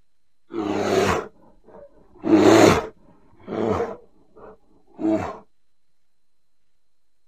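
Bear vocalizing: four short calls, each under a second, the second the loudest.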